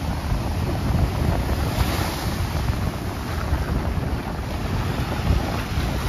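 Small sea waves breaking and washing up a sandy shore, with a brighter surge of surf about two seconds in. Strong wind buffets the microphone with a steady low rumble.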